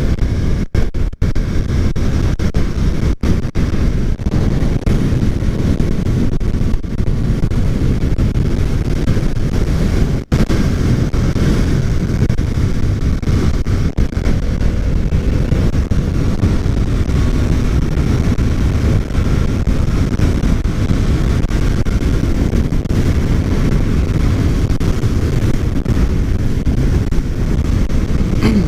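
Wind rushing over the microphone of a motorcycle ridden at road speed: a steady low rumble that dips out for an instant a few times in the first ten seconds.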